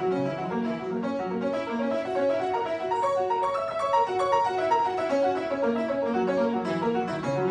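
Piano being played: a classical piece in quick, even runs of notes in the middle register.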